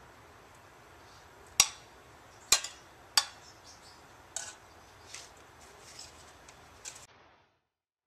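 Metal spoon clinking against a skillet as cornbread dressing is stirred and scooped: three sharp clinks, then four softer ones about a second apart, before the sound cuts off suddenly near the end.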